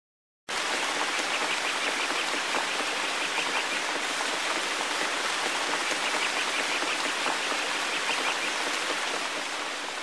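Steady rushing of running water, like a stream, starting abruptly about half a second in and beginning to fade near the end.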